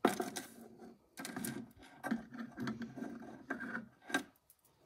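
Handling noise of a miniature ceramic chamber pot being pushed into place under a small wooden dollhouse washstand: irregular rubbing and scraping with a few light knocks.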